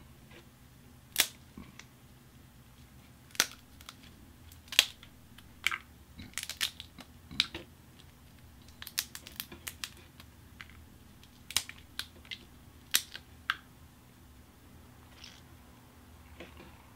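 Boiled crab shell being cracked and peeled apart by hand: sharp snaps and crackles at irregular intervals, the loudest about a second in and again near five seconds.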